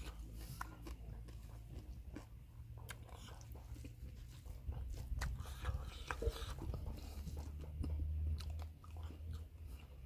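Close-miked chewing and biting of food, with many short crunchy clicks scattered throughout over a low steady hum.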